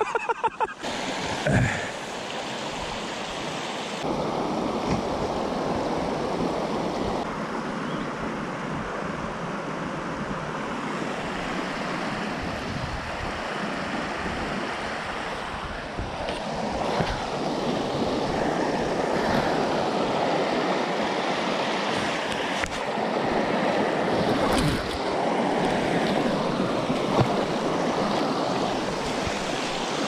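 Shallow creek water rushing steadily over a rocky riffle.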